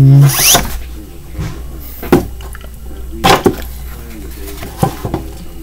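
Handling noise close to the microphone: a short vocal hum at the start, a quick rising squeak, then a few sharp knocks and rubs about 2, 3 and 5 seconds in, over a steady low hum.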